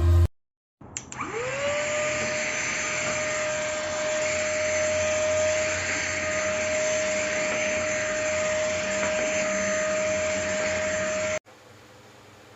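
Cordless handheld car vacuum cleaner switched on: its motor spins up with a quickly rising whine to a steady pitch over a rushing hiss, runs evenly, and cuts off suddenly near the end.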